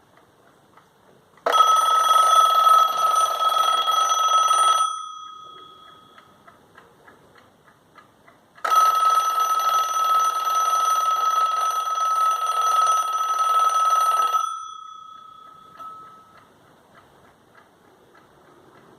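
Mechanical wind-up alarm clock ticking, then its alarm bell ringing loudly twice: a burst of about three seconds, then a longer one of about six seconds. Each time the bell rings on and fades after the hammer stops.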